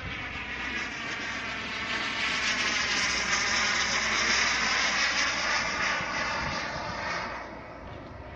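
Turbine engine of a radio-controlled model jet whining as the jet passes overhead, swelling to its loudest about four seconds in and fading away near the end.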